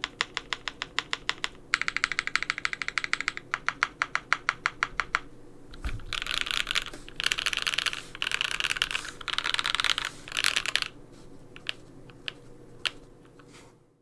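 Typing on a GMMK Pro mechanical keyboard with lubed linear 'creampaca' switches, PBT keycaps and a polycarbonate plate. Steady runs of separate keystrokes, then about halfway through five dense bursts of very fast keypresses, then a few single key presses before it fades out near the end.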